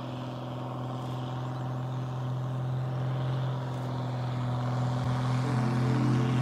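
Light propeller aircraft's engine and propeller droning steadily as the plane flies low past, growing gradually louder.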